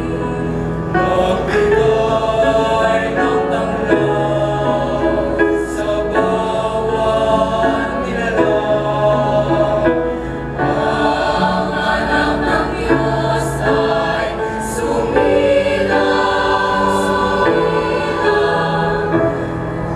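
Mixed choir of young women and men singing in harmony, held chords with a low men's part under them, moving to a new chord every second or so.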